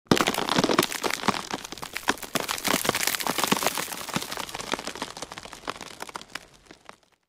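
A hairbrush dragged through thick, tangled hair gives a dense crackling, loudest at first and fading away over several seconds.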